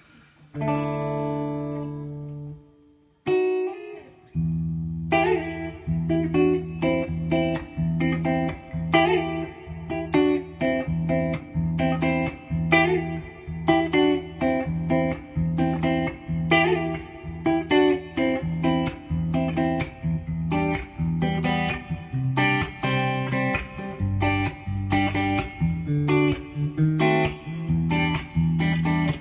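Electric guitar played through a DigiTech 2101 rack guitar preamp/effects processor: a held chord near the start, then from about five seconds a steady riff of short, repeated chords over low notes.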